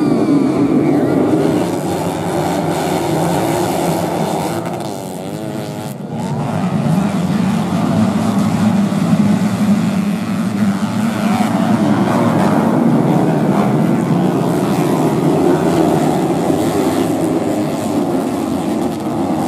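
A pack of modified underbone (bebek) motorcycles racing together, their small engines revving hard with pitch rising and falling as the riders work the throttles. The sound changes abruptly about six seconds in, then the pack carries on.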